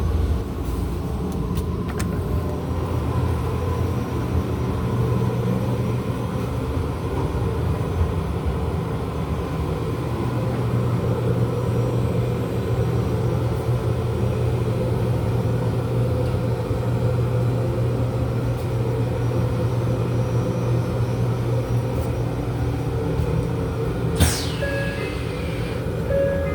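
Steady rumble and hum of a Taroko Express electric train running on the rails, heard inside the carriage. Near the end a short squeal falls in pitch and then holds.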